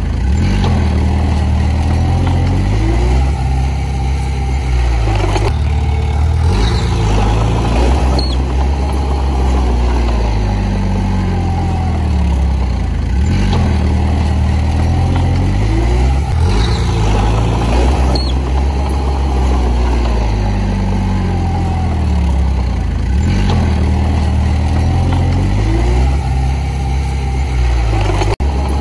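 Komatsu bulldozer's diesel engine working under changing load, its pitch rising and falling every few seconds, with occasional metallic clanks. The sound cuts out for a moment near the end.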